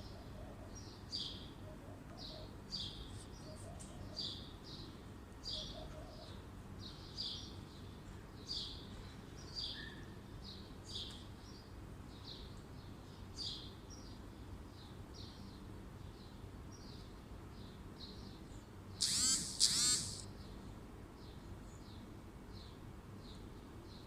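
A bird chirping over and over, one or two short high chirps a second, growing fainter as it goes. A louder, brief burst of sharper calls comes near the end.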